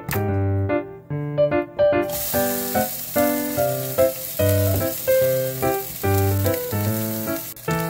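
Chopped green onions start sizzling in hot oil in a frying pan about two seconds in, a steady hiss under a light keyboard tune that plays throughout and is the loudest sound.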